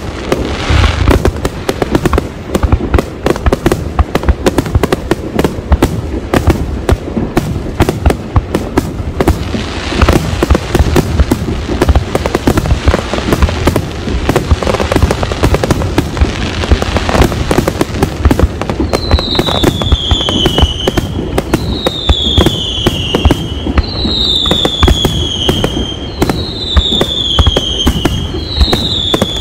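Fireworks display: a dense, unbroken barrage of aerial shell bursts, rapid bangs following close on one another. From about two-thirds of the way in, a high falling whistle repeats about every second and a half over the bangs.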